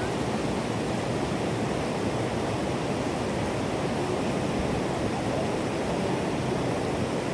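Steady rushing of a creek cascading over rocks in a small waterfall.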